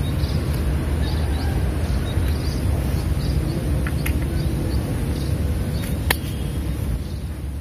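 Outdoor ambience: a steady low rumble with faint high chirps, and two sharp clicks about four and six seconds in.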